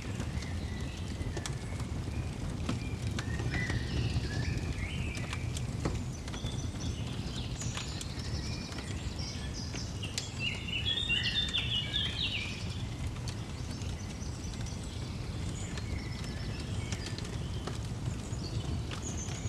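Birds chirping and twittering in scattered bursts, with a busy flurry about halfway through, over the sharp pops and crackles of a wood fire and a low steady rumble.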